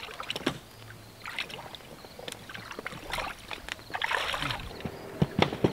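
People wading barefoot through cold shallow water, with splashing and sloshing, plus scattered knocks and clatter as gear is handled. A louder splash comes about three seconds in, and a few sharp knocks come near the end.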